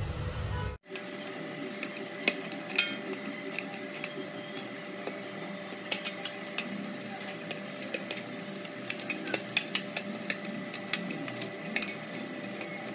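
Small irregular knocks and clinks of hands and utensils working in a steel plate on a stone counter, over a steady background hum.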